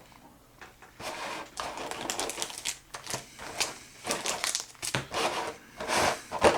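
Plastic packaging crinkling in irregular handfuls as it is handled, starting about a second in.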